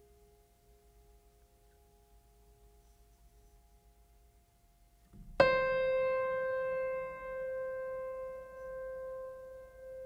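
Background music: faint lingering tones for the first few seconds. About five seconds in, a single note is struck sharply and rings out slowly with many clear overtones, its level wavering as it fades.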